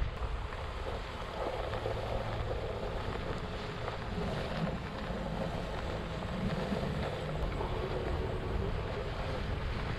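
Wind buffeting the microphone over the steady rumble of a Onewheel Pint electric board rolling across mown grass.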